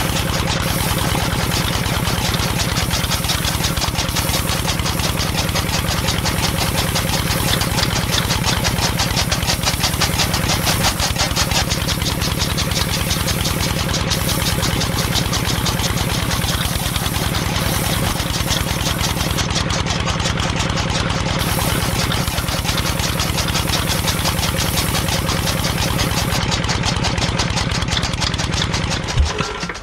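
Small motor of a miniature rice thresher running steadily with a fast, even chatter as it spins the threshing drum. It stops abruptly just before the end.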